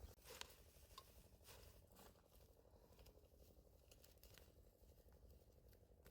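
Near silence, with a few faint, light clicks scattered through it over a low steady hum.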